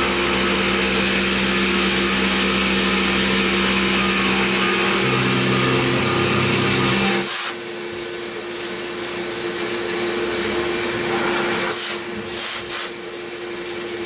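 CNC mill side-roughing a metal block with a long end mill under flood coolant, a deep, narrow cut at 4,000 RPM and 20 inches a minute: a loud, steady cutting noise with a hum of steady tones. About seven seconds in the noise drops sharply, leaving a quieter steady hiss of the spinning tool and coolant spray.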